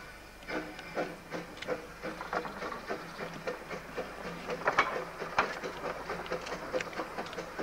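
Small narrow-gauge Hunslet quarry saddle-tank steam locomotive 'Alan George' moving slowly along the track: a quick, uneven run of sharp exhaust chuffs and clanks over a faint steam hiss.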